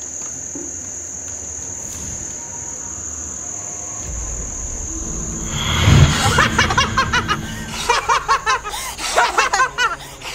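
Crickets chirping steadily, then a swelling whoosh that peaks in a loud boom about six seconds in, a film sound effect for a sudden burst of fire and dust. Loud shouting voices follow.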